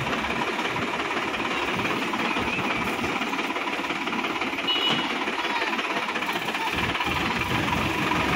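Sonalika DI-50 RX tractor's diesel engine running while it drives, a steady rapid clatter of firing.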